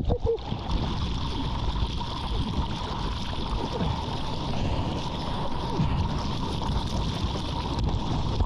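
Sea water splashing and gurgling around a GoPro camera in the surf, over a steady low rumble.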